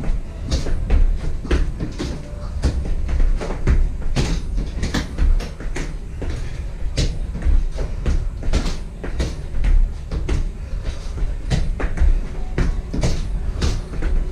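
Feet stepping up onto a workout bench and back down during step-ups: irregular thuds and knocks, a few a second, over a low steady rumble.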